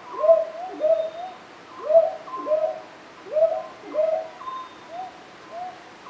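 Northern boobook (brown hawk-owl) giving its two-note 'hoo-hoo' call, each note swooping up and then held, about four pairs a second and a half apart. The pairs come at different loudnesses; the quieter calls are the real owl's, answering louder played-back calls.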